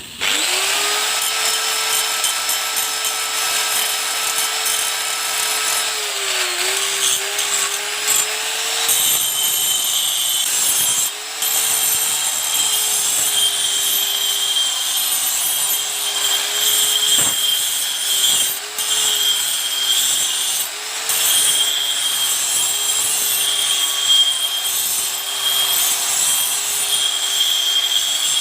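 Small petrol engine of a grass-cutting machine starting right after a pull on the recoil starter, then running steadily at high speed, its pitch wavering slightly with a few brief dips.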